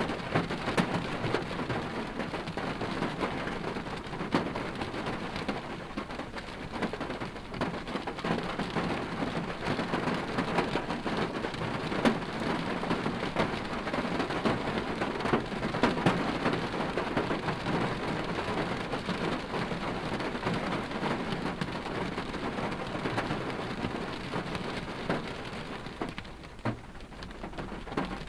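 Rain falling on a car's body, heard from inside the cabin: a steady hiss full of small drop impacts. It thins out near the end.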